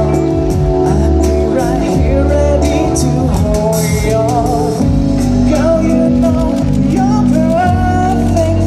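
A song: a voice sings a wavering melody with vibrato over sustained instrumental accompaniment.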